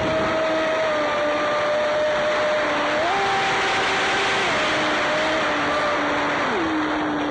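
Traxxas Spartan RC boat's brushless electric motor whining under way over a steady rush of water, heard from on board. The whine steps up in pitch about three seconds in, drops back a second and a half later, and falls again near the end.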